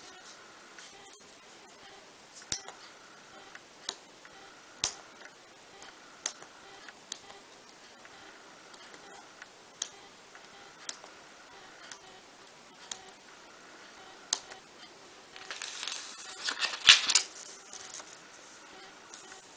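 Small parchment-craft scissors snipping through perforated parchment paper, single sharp snips about once a second. Near the end comes a louder burst of rustling and clicking as the parchment sheet is handled and turned.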